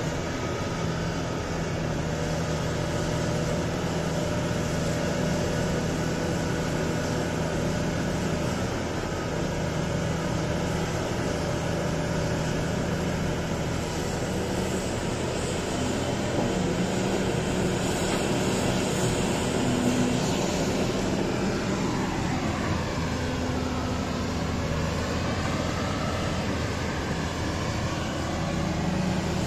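Volvo EC950E excavator's diesel engine and hydraulics running steadily under load as it loads a haul truck, with a whine that rises and falls in pitch about two-thirds of the way through.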